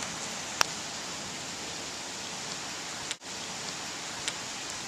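Steady hiss of heavy rain during a night thunderstorm, with a couple of sharp ticks about half a second in and past four seconds in. The sound cuts out for an instant about three seconds in.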